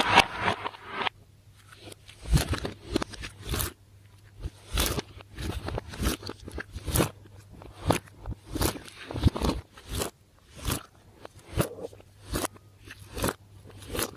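Slime being squished and pressed by hand: a longer, louder squish at the start, then short wet squishes about once a second.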